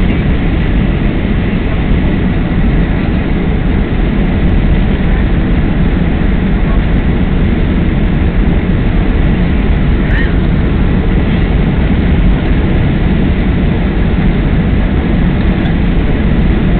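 Steady, loud cabin noise inside a Boeing 767 airliner on approach with its flaps extended: the constant rush of engines and airflow over the wing, heaviest in the deep rumble.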